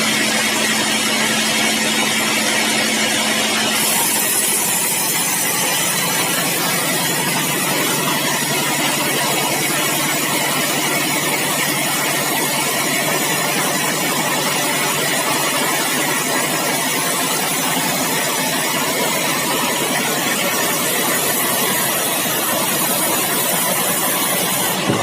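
Sawmill machinery running steadily: a dense, even mechanical noise with a low hum underneath, which shifts in tone about four seconds in.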